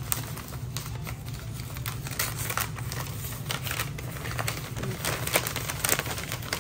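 White packing paper crinkling and rustling as it is unwrapped by hand from around a small potted plant, a run of irregular crackles with a few louder crinkles near the end.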